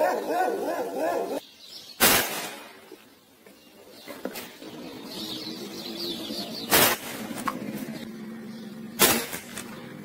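A dog whines in short rising-and-falling cries for the first second or so. Then come three sharp shots from a scoped hunting air rifle: about two seconds in, near seven seconds and about nine seconds in.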